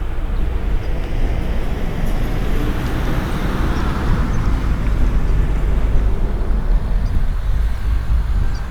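A car passing on the street, its tyre and engine noise rising to a peak about four seconds in and then fading.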